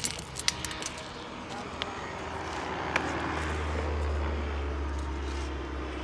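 Low rumble of a passing vehicle, swelling about three seconds in and easing off near the end, with a few sharp clicks and knocks in the first second.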